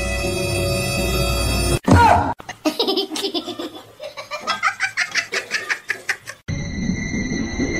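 A held musical tone cuts off with a sudden loud sound about two seconds in. A person then laughs hard for about four seconds in a quick run of short 'ha' sounds. Near the end a steady high tone starts.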